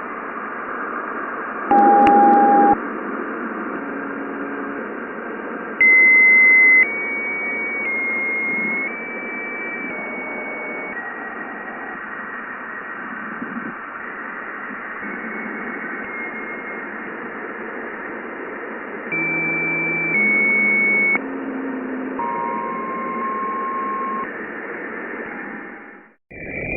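NASA's conversion of the Juno probe's measurements at Jupiter into audio, representing the shock where the solar wind meets Jupiter's magnetic field. It is a steady radio-like hiss with held tones that step up and down in pitch, each about a second long. Near the end it cuts out briefly and a different sound takes over.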